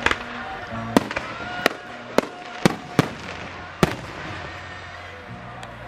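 Fireworks going off: about seven sharp bangs at uneven intervals over the first four seconds, after which the bangs stop.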